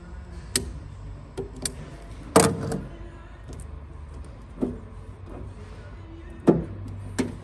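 Hands cutting and peeling electrical tape off a vehicle wiring loom with a snap-off utility knife. Scattered sharp clicks and knocks sound over a low steady hum, the loudest about two and a half seconds in.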